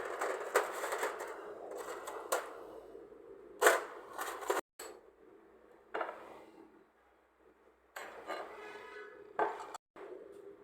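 Several sharp knocks and clinks of hard objects over a steady hum, broken twice by abrupt cuts to silence.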